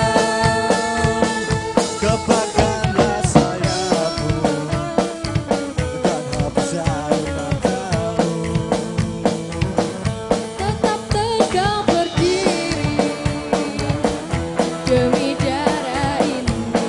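Live band performance: a female singer singing into a microphone over electric guitar and a drum kit keeping a steady beat.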